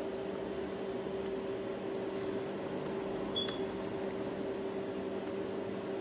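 Steady machine hum of room electrical equipment, one constant tone over a low background noise. A few faint, sharp clicks are spread through it, with one brief high chirp about three and a half seconds in.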